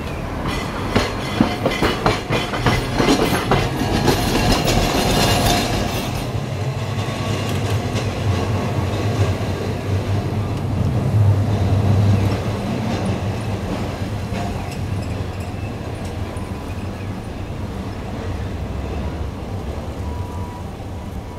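Hakodate City Tram car 8007 running through a track junction, its wheels clattering over rail joints in a quick run of clicks for the first six seconds. After that comes a steady low hum of the running tram and passing traffic, which swells around eleven seconds and slowly fades.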